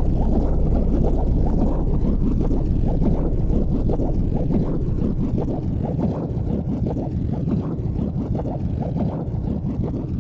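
Snowbike engine running under load while riding through deep powder, heard as a rough, muffled drone mixed with wind buffeting on the microphone, easing slightly toward the end.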